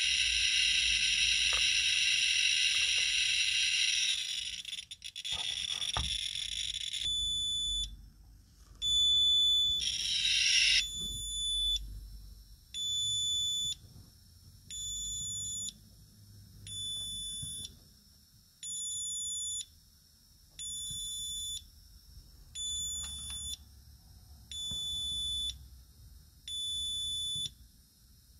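Rotem RAM Gene-1 radiation meter held against pitchblende uranium ore: first a continuous high buzz, then from about seven seconds in a repeating high alarm beep, each about a second long and coming about every two seconds. The alarm signals a count rate above the meter's alarm threshold, here several thousand counts per second.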